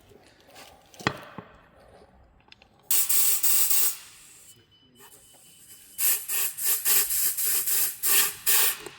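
Hissing at the wheel: a sharp click about a second in, a steady hiss lasting about a second, then a run of quick short hisses, about three a second, near the end.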